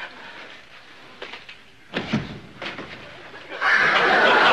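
Studio audience laughter dies away. After a short sound about two seconds in, the audience breaks into loud laughter again near the end.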